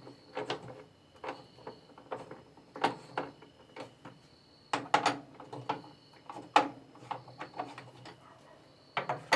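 Irregular clicking and knocking of a jack and metal parts being worked to pull the basket off a washing machine. Several louder knocks come in clusters, about three seconds in, around five seconds in, and near the end.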